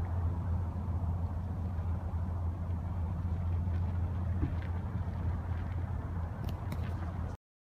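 Distant GE 7FDL-12 diesel prime mover of a P32-8WH locomotive pulling away, a steady low drone. It cuts off suddenly near the end.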